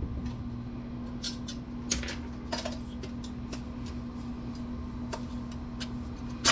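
Scattered light clicks and taps of metal parts being handled while a desktop PC case is taken apart, over a steady low hum.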